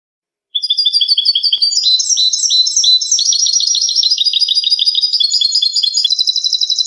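European goldfinch (jilguero) singing: a fast, unbroken run of rapid twittering notes and buzzy trills. It begins about half a second in and ends with a falling note near the end.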